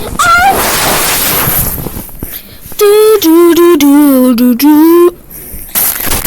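Loud noisy vocal sounds at the start, then a young voice singing a short run of held notes that step down in pitch and rise again at the end, about three seconds in.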